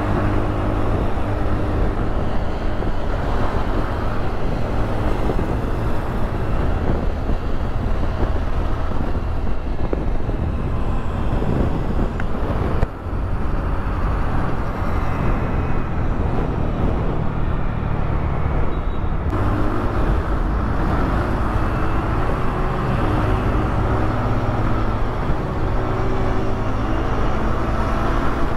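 TVS Ntorq 125 scooter's single-cylinder engine running at a steady cruise around 50 km/h, mixed with wind and road noise on the onboard camera and surrounding traffic. The sound dips briefly about thirteen seconds in.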